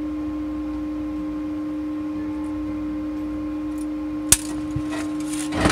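Steady low workshop hum, with a sharp click about four seconds in as the short tape-measure blade snaps back into its case, then a brief scrape near the end as the folded sheet-steel piece is moved on the steel bench.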